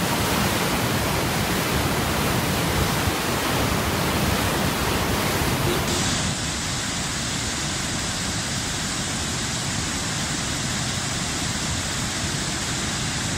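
Floodwater rushing: a steady noise of churning water pouring from open dam spillway gates, which changes about six seconds in to a slightly quieter, duller rush of a swollen river running over rocks.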